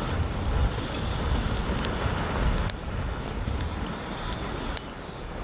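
Split firewood burning in a metal fire pit, crackling with many sharp pops. Wind buffets the microphone as a low rumble, easing somewhat about halfway through.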